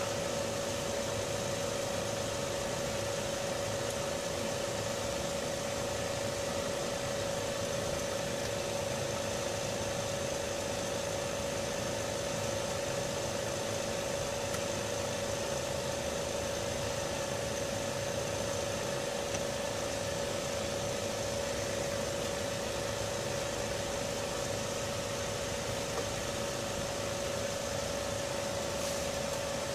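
Steady hum of running bench equipment, a fan or blower, with a constant mid-pitched whine that does not change.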